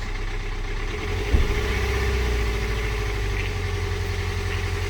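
BMW N47 four-cylinder diesel engine running just above idle and brought up a little by the accelerator, with a short knock about a second in. It then runs fairly evenly. Its rough idle was traced to a bad electrical connection at one of the injectors.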